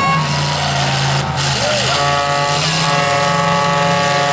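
Demolition-derby pickup truck engines running, with a steady horn tone sounding from about two seconds in.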